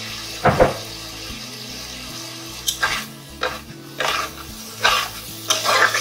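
Metal spatula stirring and scraping potato chunks through spice paste in a pan, in repeated strokes from about three seconds in, over a light sizzle. A sharp knock of the spatula comes about half a second in.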